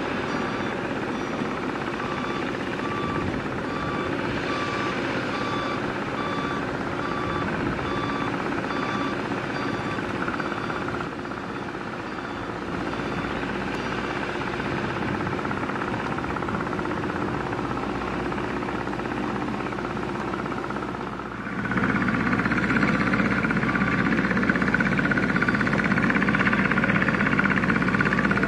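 Komatsu mini excavator's diesel engine running under load as it digs, with a warning beeper sounding in a steady, even rhythm for roughly the first third. About three-quarters of the way through the engine noise becomes clearly louder and stays so.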